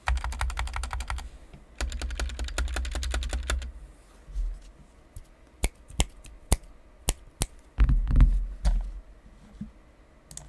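Typing on an Epomaker SK61 keyboard with factory-lubed Gateron optical yellow switches and a foam mod: two fast runs of keystrokes, then slower single key presses, and a short cluster of deeper thuds about eight seconds in.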